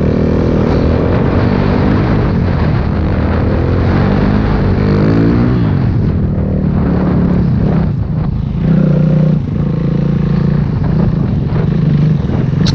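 Single-cylinder four-stroke 450 dirt bike engine running hard under throttle. Its pitch rises and falls as it revs, drops away about five to six seconds in, then comes back with a short louder burst near nine seconds.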